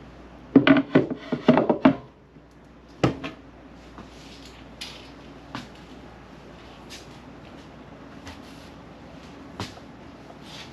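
Kitchen cabinetry in a motorhome being handled: a quick run of clattering knocks between about half a second and two seconds in, then a single sharp knock about three seconds in, with a few faint ticks after.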